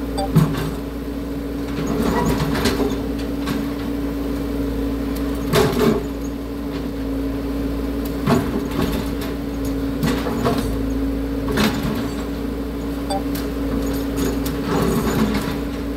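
Caterpillar excavator's diesel engine running steadily under work, with a constant hum and low rumble, broken by sharp knocks and clanks every few seconds as the machine breaks out concrete.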